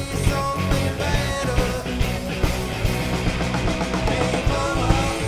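Live rock band playing: electric guitars over electric bass and a drum kit keeping a steady beat.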